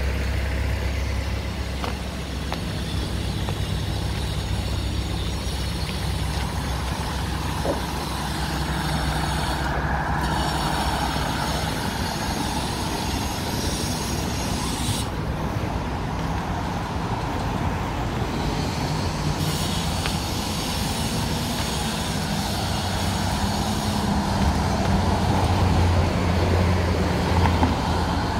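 Road traffic on a multi-lane street: a steady rumble of passing cars and trucks, a little louder near the end as vehicles come by.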